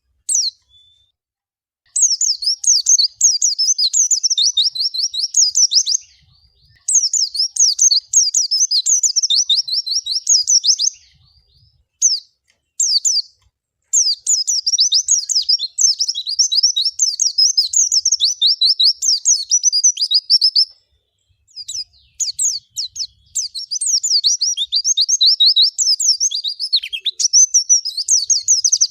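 A pleci (white-eye) singing: long runs of rapid, high twittering notes, each run lasting four to six seconds with brief pauses between, and a few single chirps around the twelve-second mark.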